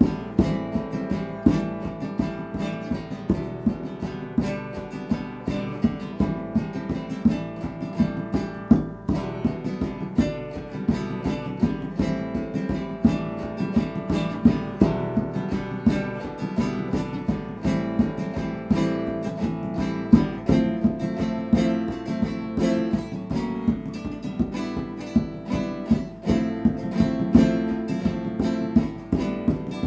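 Background music on acoustic guitar, strummed and plucked at a steady rhythm.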